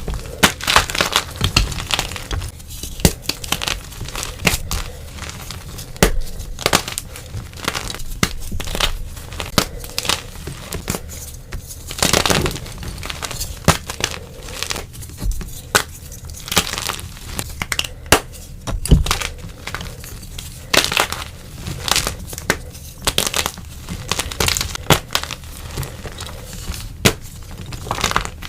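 Blocks of dyed gym chalk being crushed and crumbled up close, a dense run of dry crunching and crackling with louder snaps every second or so.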